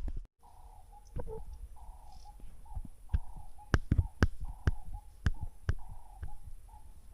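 Footsteps knocking on a walkway, a little under two a second and loudest in the middle, over an animal calling the same short note again and again, about once every half to three-quarters of a second.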